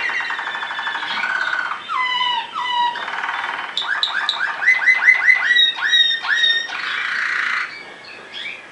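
Waterslager (Malinois) canary singing a varied song: a fast rolling trill, then a few notes gliding down in pitch, then a run of quick rising notes about three a second, ending in a buzzy rolling phrase that stops near the end.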